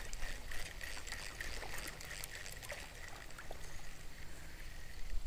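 Wind rumbling on the microphone under an even outdoor hiss, with a faint steady high-pitched tone and a few soft clicks.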